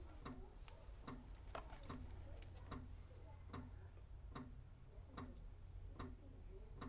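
Faint, fairly regular ticking, about two ticks a second, over a low steady hum.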